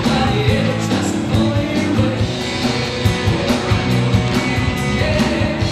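Rock music with electric guitars, drums and a singing voice.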